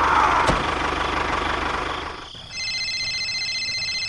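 Tractor engine running, with a low pulsing chug, fading out about two seconds in. A steady high electronic tone of several pitches then sounds until the end.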